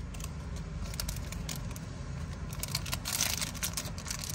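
Handling noise: irregular crinkling and small clicks, busiest a little past the middle, over a steady low hum.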